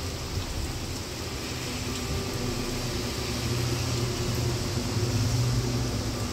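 Steady rain falling, with a low mechanical hum underneath that swells a little past the middle and eases near the end.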